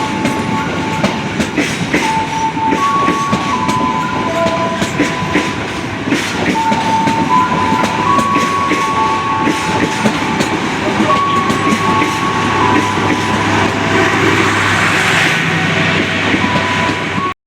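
Electric commuter train running past on the rails, its wheels clattering. A string of single held tones steps up and down in pitch over the train noise, and everything cuts off suddenly at the end.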